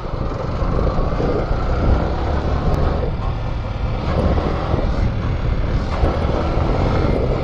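Motorcycle being ridden over a rough, muddy dirt track: the engine runs steadily under a heavy low rumble of wind on the microphone.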